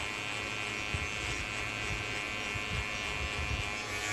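Electric hair clipper running with a steady buzz as it shaves a head down close to the scalp.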